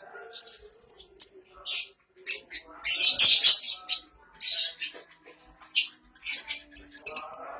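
Lovebirds chattering: a rapid run of short, harsh, high-pitched chirps, loudest about three seconds in.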